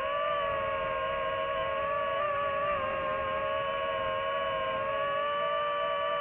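DJI FPV drone's motors and propellers whining steadily in flight, the pitch wavering only slightly as the throttle holds.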